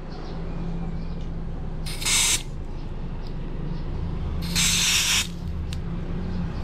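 Green gas hissing from a can into a Glock 19 green gas blowback airsoft pistol's magazine as the can's nozzle is pressed onto the fill valve: two short bursts, about two seconds in and again about four and a half seconds in, the second one longer.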